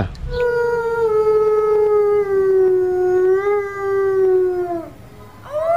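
Wolf howling: one long howl that sinks slowly in pitch and drops away at its end, then a second howl starting and rising near the end.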